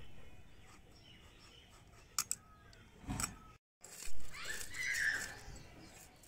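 Fish scales being scraped off a carp against the iron blade of a boti: short scratchy scrapes and clicks, with a longer rasping stretch about four seconds in.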